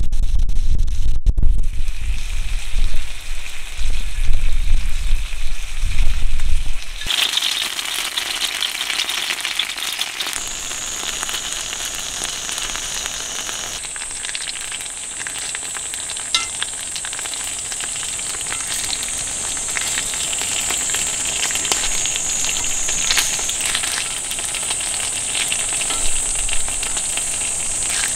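Freshwater eel pieces sizzling on a hot griddle pan, some of them glazed with sauce. For about the first seven seconds a gusty low rumble of wind on the microphone is the loudest sound; after that the sizzle goes on as a steady hiss with small crackles.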